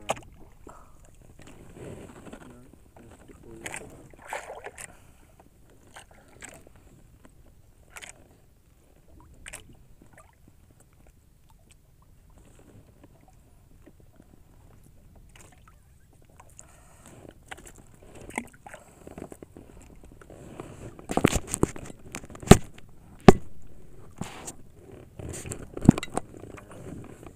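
Scattered knocks and scrapes of gear handled on the deck of a small fishing boat, with a cluster of sharp, louder knocks in the last few seconds.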